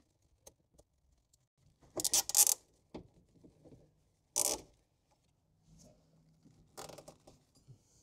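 Nylon zip tie being pulled through its locking head in three short zipping pulls, about two seconds apart, tightening it around a plastic connector enclosure, with faint handling noise between the pulls.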